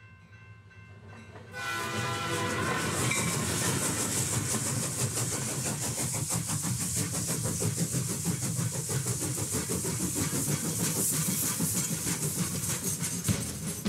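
A train whistle sounds about a second and a half in, followed by the fast, even clickety-clack of a train running on rails.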